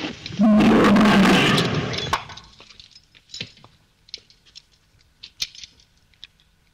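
Old black-and-white film soundtrack: a loud, rough animal cry starting about half a second in and lasting just over a second, then fading to scattered faint clicks and knocks.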